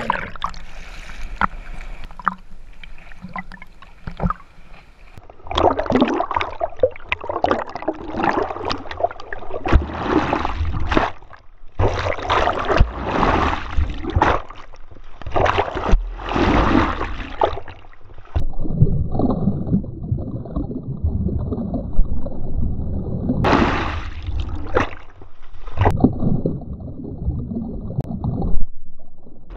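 Sea water splashing and rushing around a GoPro camera as it moves in and out of the water, in uneven surges. For several seconds past the middle the sound turns dull and muffled.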